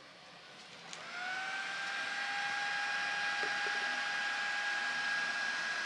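A faint click about a second in, then a 1200 W server power supply's fan spins up into a steady high-pitched whine over a rush of air as the mining rig powers on.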